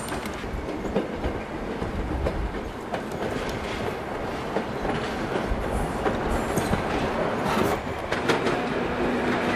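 DR V100-family (class 114) diesel locomotive rolling slowly through pointwork, its wheels clattering over the rail joints and switches in irregular clicks over a steady rumble.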